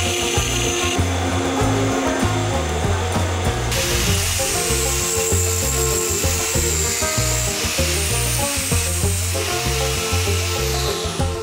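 Background music with a steady, repeating bass line throughout. From about four seconds in, a hand-held angle grinder grinds the propeller shaft turning in the lathe, a dense high grinding noise that stops shortly before the end.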